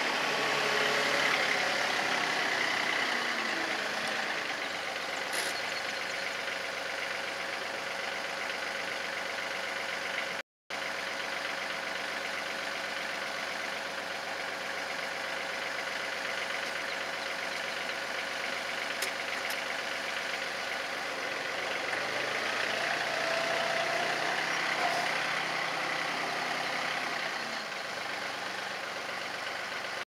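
John Deere compact tractor's diesel engine running steadily while it carries a log on its front loader, a little louder near the start and again about three quarters of the way through, with a brief dropout about ten seconds in.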